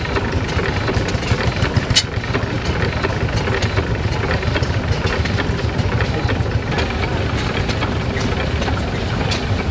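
Crossley Brothers horizontal stationary engine running steadily, its valve gear clicking as it works, with one sharp click about two seconds in.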